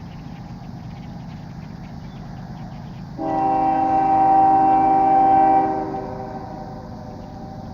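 Freight locomotive air horn sounding one long, loud blast of about two and a half seconds, starting about three seconds in. It rises over the steady low rumble of the passing CSX train.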